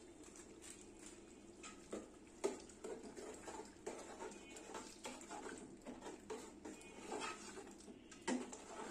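Metal spoon stirring meat and spice paste in an aluminium pot, with irregular scrapes and clinks against the pot's sides starting about two seconds in, over a steady low hum.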